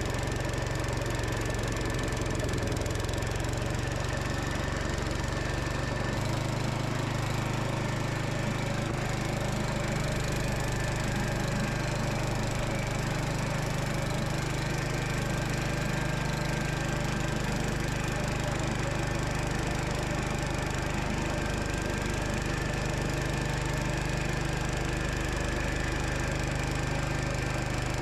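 Gravely Commercial 10 walk-behind tractor's Kohler engine running steadily while driving a snowblower attachment.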